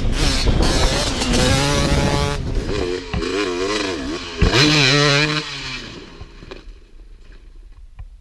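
Dirt bike engine revving, its pitch swinging up and down several times, then dying away about six seconds in.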